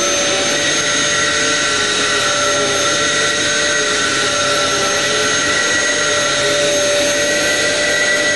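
Dyson DC07 1400-watt cyclonic bagless upright vacuum cleaner running steadily: a steady whine at several pitches over the rush of air.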